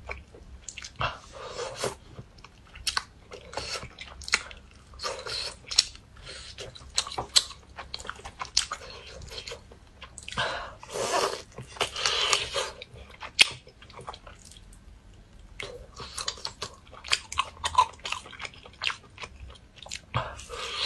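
Close-miked eating of roast chicken: chewing and biting, with many short wet clicks and smacks coming in uneven bursts.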